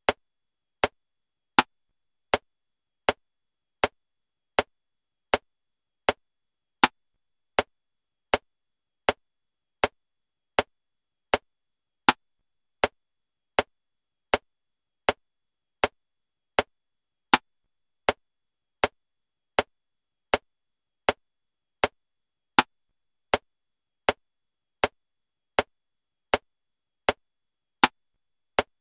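Metronome clicking at 80 beats per minute in 7/4 time: a steady click every three-quarters of a second, with a louder accented click on the first beat of each seven-beat bar.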